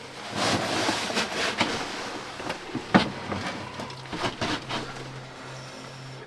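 Spoon clinking and scraping against cookware while food is dished up or eaten, among rustling and irregular small knocks, with one sharp knock about three seconds in.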